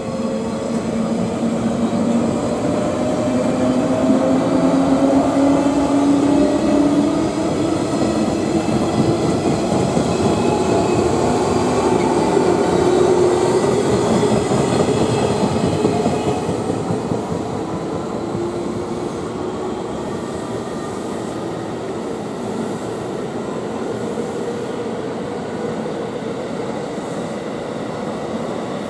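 Green JR West local electric train pulling away from the platform: its motor hum rises steadily in pitch as it gathers speed, over the rumble of the cars rolling past. About sixteen seconds in the sound drops back to a quieter, steady train rumble.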